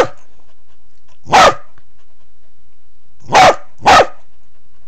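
Corgi barking: three loud, sharp barks, one about a second and a half in, then two in quick succession about three and a half seconds in.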